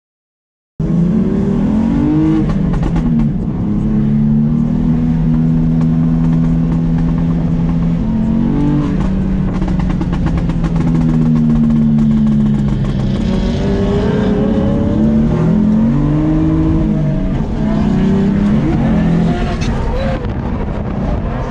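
BMW F80 M3's twin-turbo inline-six heard from inside the cabin, revving up and down and held at steady revs for a few seconds at a time as the car drifts. It starts about a second in, after a moment of silence.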